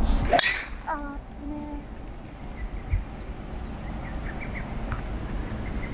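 A driver striking a golf ball off the tee: one sharp crack about half a second in.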